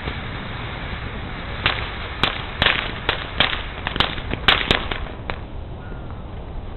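Fireworks going off: a quick, irregular run of about ten sharp cracks, starting nearly two seconds in and stopping a little after five seconds.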